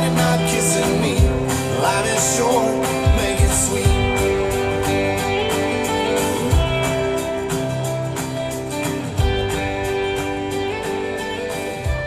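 Country-style soundtrack music with guitar and a steady drum beat.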